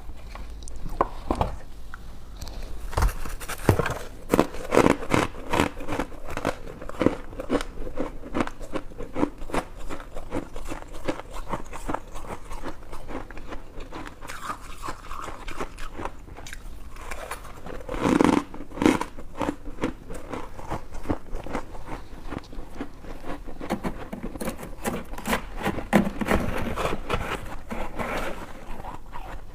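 A person biting and chewing white freezer-frost ice close to the microphone: a steady run of sharp, crisp crunches, with a louder burst of crunching about eighteen seconds in.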